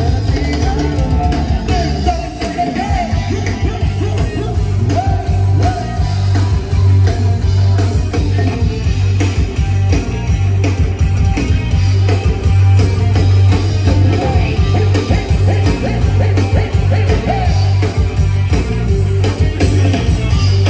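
Live band music: a loud band with a heavy, pulsing bass line and a singing voice.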